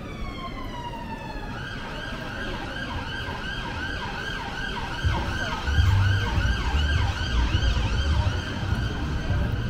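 Emergency vehicle siren: a held tone that slides down in pitch as the vehicle goes by, then switches about a second and a half in to a fast repeating yelp. A low rumble swells and grows louder about five seconds in.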